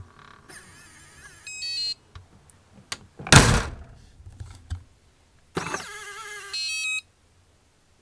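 RVLock keyless RV door lock's motor whirring as it throws the deadbolt, ending in a quick run of electronic beeps; a loud door thump about three seconds in; then the whir and beeps again near the end. The deadbolt does not fully bolt because it is out of line with the strike.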